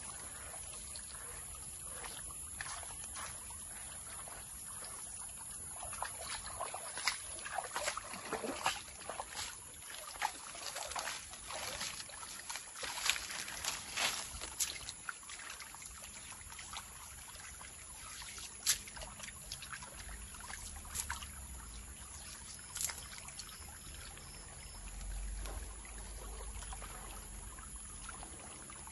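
Water sloshing and trickling as a gold pan is worked in a stream, with short splashes and the rattle of gravel raked by hand in the pan. The splashes and rattles come thickest in the middle of the stretch, then thin out to a few now and then.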